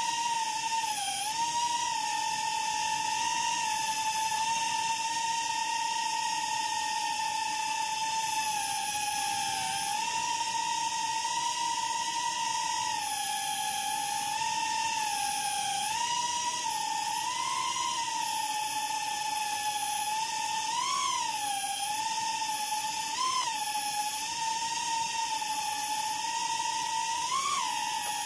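High-pitched whine of the small electric motors on the radio-controlled craft carrying the camera. It holds a steady pitch for the first half, then briefly rises and falls in pitch several times.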